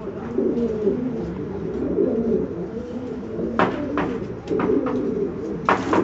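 Domestic pigeons cooing steadily in a loft, with a few short sharp clicks about halfway through and near the end.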